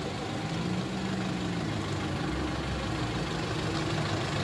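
Engines of a convoy of modified offroad 4x4s running as the vehicles roll slowly past, gradually growing louder as the lead vehicle approaches.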